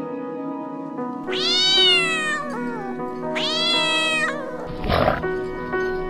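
Two cat meows, each about a second long, rising quickly and then sliding down in pitch, over steady background music. A short noisy burst follows about five seconds in.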